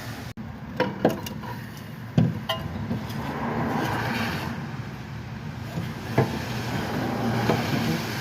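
Metal tools and car parts clinking and knocking during CV axle work: a few sharp knocks, one ringing briefly about two and a half seconds in, over a steady low rumble.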